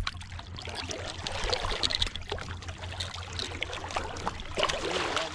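Seawater sloshing and splashing against the side of a small open boat, an uneven wash with a few light knocks.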